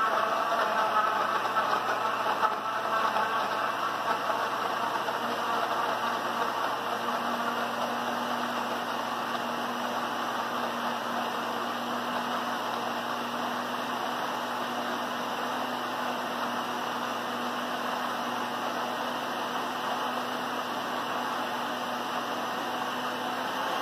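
Electric countertop blender running with raw yam, a whole lemon, fresh herbs and water in the jar: louder and uneven for the first few seconds while the chunks are chopped, then settling into a steady whirr with a low hum.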